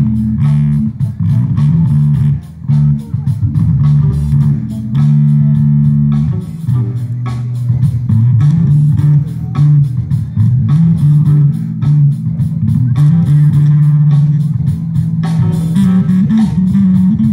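Live band playing amplified music through a PA: electric guitar, bass guitar and drum kit, with heavy sustained bass notes under a steady drum beat.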